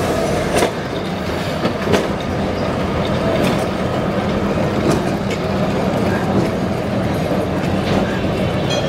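Two-car electric street tram rolling past close by on its rails: a steady rumble of wheels on track with a low hum, broken by irregular sharp clicks and clacks.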